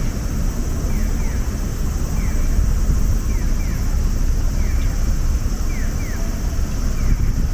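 Strong gusty wind buffeting the microphone with a heavy rumble. Over it, a pedestrian crossing's electronic audible signal chirps in short falling pairs, about one pair every 1.2 seconds.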